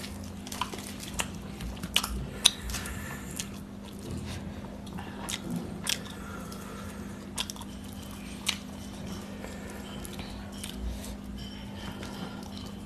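Close-miked chewing of rice, puri and curry eaten by hand, with scattered sharp mouth and finger clicks. A steady low hum runs underneath.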